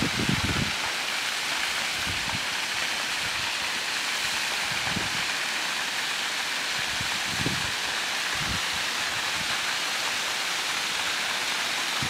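Thin waterfalls pouring off a rock ledge and splashing below: a steady, even rush of falling water, with now and then a soft low bump.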